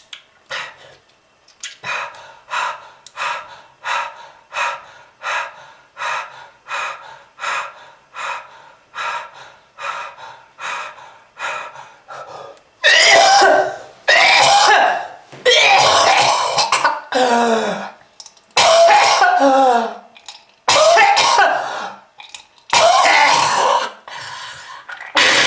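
A person with a smoker's cough. First comes a long run of short, even hacking coughs, about two a second. About halfway through, loud, drawn-out rasping coughing fits take over, each lasting about a second, some ending with the voice falling in pitch.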